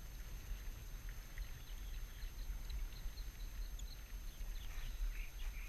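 Wind buffeting an action camera's microphone: an uneven low rumble, with faint scattered high ticks and chirps above it that grow busier in the second half.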